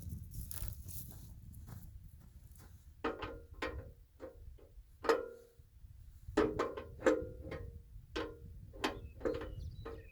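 Irregular metallic clinks and knocks, about a dozen over several seconds, each ringing briefly: hand tools and fittings being handled during a hydraulic hose repair on a tractor backhoe. A low rumble of wind noise fades out in the first couple of seconds.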